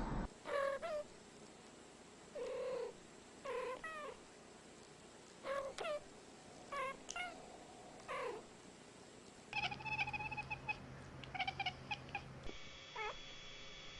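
Domestic cats meowing: a string of short meows that bend up and down in pitch, a second or two apart, then quicker, higher chirping calls near the end.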